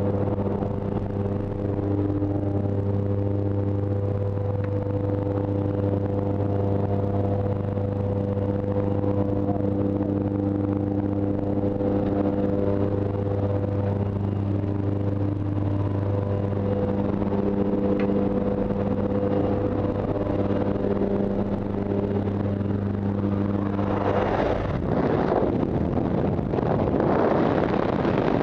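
Steady droning of the jump plane's engines and propellers heard from inside the cabin, a constant low hum of several held tones. About 24 seconds in, the hum gives way to loud rushing wind from the open door.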